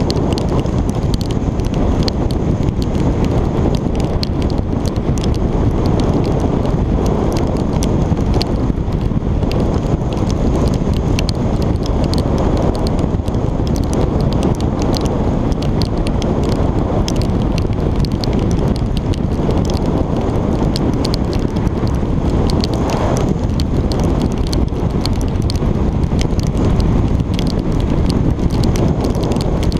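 Steady rush of wind and road noise on a motorcycle's GoPro at riding speed in rain, with raindrops striking the camera in frequent sharp ticks.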